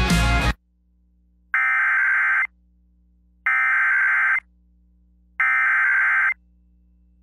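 Music cuts off about half a second in, followed by the three Emergency Alert System SAME header data bursts, each about a second long with about a second's pause between them, which open an EAS alert broadcast on FM radio.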